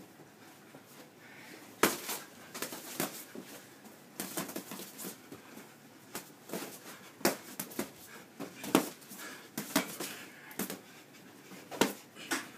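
Boxing-glove punches landing in an irregular series of sharp slaps and thuds during a sparring exchange, the hardest hits about two seconds in, near nine seconds and near twelve.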